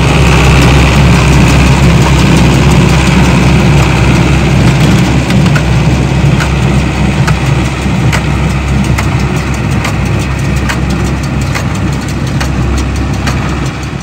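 International 440 small square baler working hay behind an International tractor: the tractor engine runs steadily while the baler works. From about five seconds in, the baler's mechanism adds sharp knocks, a little more often than once a second.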